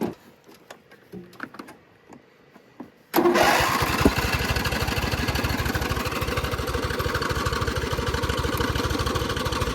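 Riding lawn mower's small engine, after a few faint clicks and knocks, catches suddenly about three seconds in and keeps running steadily at a fast, even beat, showing it still has fuel.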